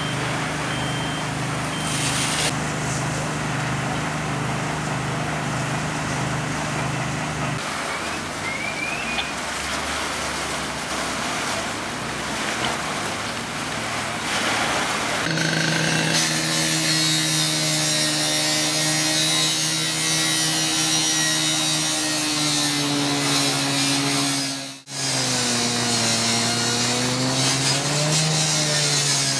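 A steady engine hum with even noise over it. From about halfway a petrol power saw runs, its engine note drifting and then rising and falling, as it cuts into the corrugated sheet-metal wall.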